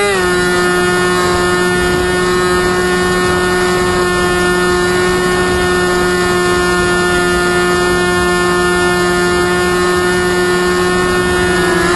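NTM 3542 1250 kV brushless motor spinning a 10x4.7 propeller on a flying wing in flight, a steady whine with rushing air, heard from on board. The pitch drops slightly as it begins and dips then rises again near the end as the throttle changes.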